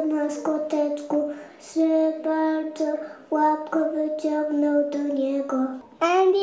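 Young children singing a song.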